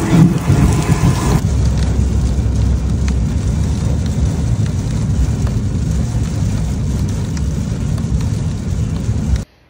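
Rain falling on a wet walkway for about a second and a half, then the inside of a car driving through heavy rain: a steady low rumble of tyres on the wet road, with rain on the car. It cuts off suddenly near the end.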